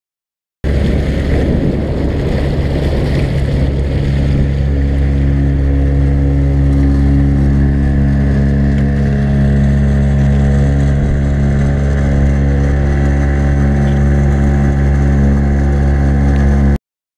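A small boat's outboard motor running at a steady speed, a constant low hum, with a rougher rushing noise over the first few seconds. The sound starts and stops abruptly.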